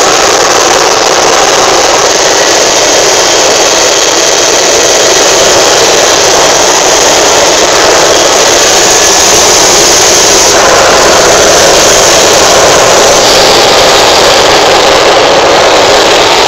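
Small helicopter in flight, heard from inside its cabin: a loud, steady rushing noise with no distinct tone or rhythm.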